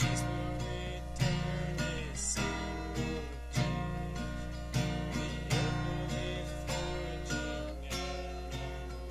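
Acoustic guitar strummed in a steady rhythm, ringing chords between strokes, with no singing.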